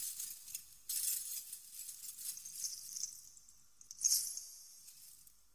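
Light metallic jingling of small bells or jangling ornaments in three shaken bursts: at the start, about a second in, and a stronger one near four seconds, each dying away.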